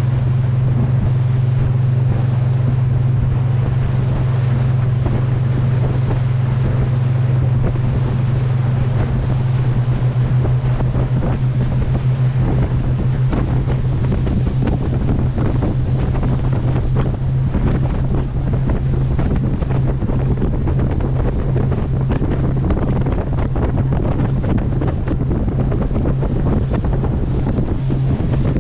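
Boat's engine running steadily at cruising speed, with wind buffeting the microphone and water rushing past. From about ten seconds in, the drone grows choppier, with more frequent knocks from the water.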